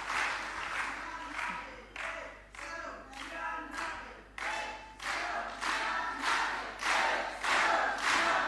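Audience chanting a slogan in unison in rhythmic shouts, about two a second. In the middle the voices turn briefly to a pitched, sung call before the rhythmic chant picks up again.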